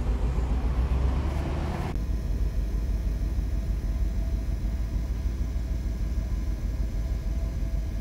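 Mercedes-Benz 420SEL's 4.2-litre V8 idling, heard from behind the car near the exhaust. The idle is uneven because one cylinder is misfiring, which the owner suspects is caused by a faulty injector.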